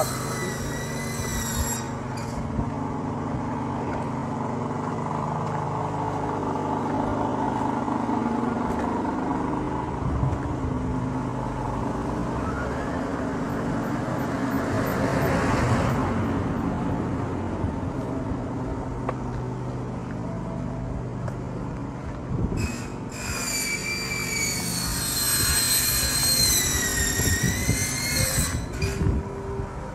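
Road traffic noise: a steady vehicle engine hum, with a vehicle passing loudly about halfway through. A high wavering tone comes briefly at the start and again for several seconds near the end.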